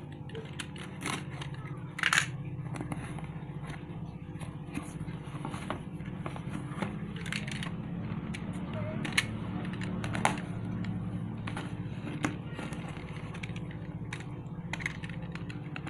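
Utility knife blade scraping and slicing through packing tape on a cardboard box, with crackling tape and many sharp clicks and taps, the loudest about two seconds in and again about ten seconds in, over a steady low hum.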